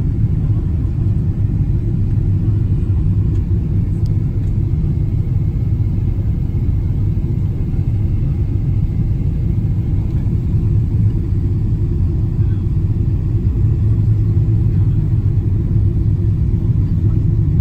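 Airliner cabin noise: a steady, loud, low rumble of engines and airflow heard from inside the passenger cabin.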